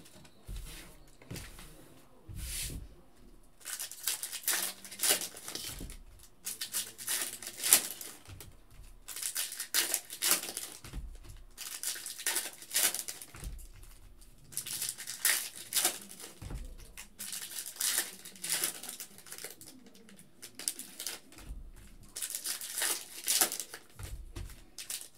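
Foil trading-card pack wrappers being torn open and crinkled, in repeated bursts of rustling, with the cards handled and set down on the table in soft thuds.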